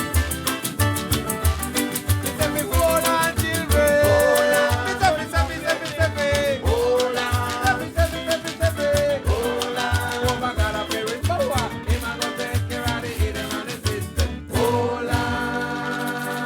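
Upbeat Caribbean dance-band music with a steady, even bass beat and a sliding lead melody. Near the end it breaks off briefly and changes to a passage of held tones without the bass beat.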